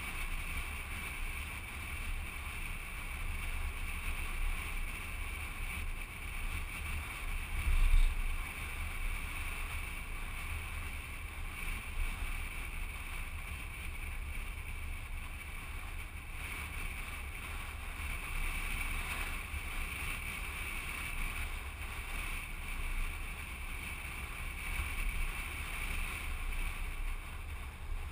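A car driving, heard from a camera mounted on its outside: steady wind rushing over the microphone over a low road and engine rumble, with one brief thump about eight seconds in.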